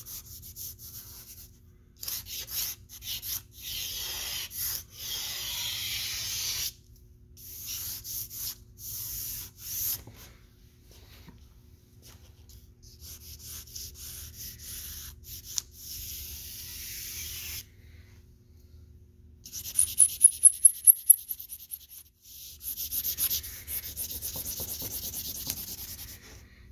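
Vine charcoal scratching and rubbing across drawing paper in runs of shading strokes with short pauses between them, as dark tones are laid into the background. About 20 s in comes a quick run of about eight short, sharp strokes.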